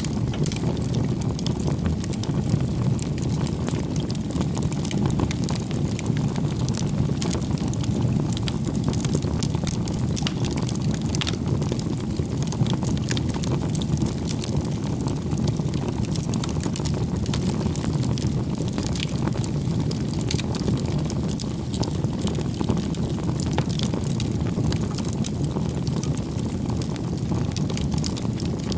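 Wood campfire burning, with a steady low rumble of flames and many small crackles and pops from the burning wood.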